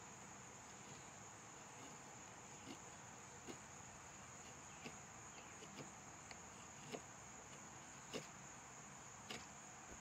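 Faint, steady high-pitched chirring of crickets, with soft scraping ticks about once a second as the Victorinox Tinker's small steel blade shaves slivers off a stick.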